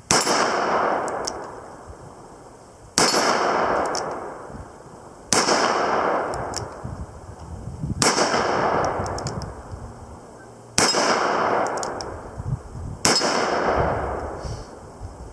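Taurus Model 44 revolver firing six .44 Magnum shots, one every two to three seconds. Each is a sharp, loud report that dies away over a second or two.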